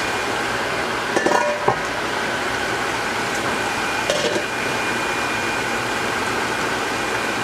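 A few light clinks of a cooking spoon against pots and pans, about a second in and again about four seconds in, over a steady kitchen hiss.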